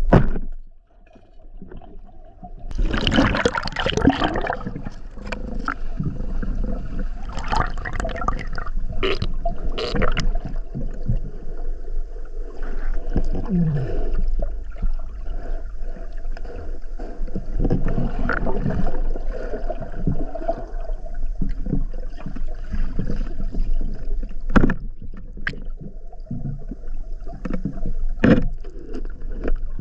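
Water heard underwater through a submerged camera: a muffled wash with gurgling bubbles over a steady low rumble, and scattered knocks and clicks, one sharp knock at the very start.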